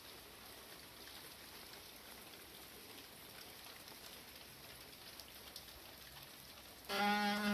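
Steady rain falling on surfaces. Near the end a loud, steady-pitched tone like a horn starts suddenly and holds for about a second over the rain.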